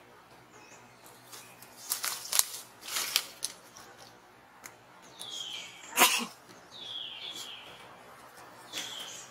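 A baby monkey gives short, high, squeaky calls that fall in pitch, three of them spread across the last few seconds. They mix with sharp clicks and rustles, and the loudest is a single sharp click about six seconds in.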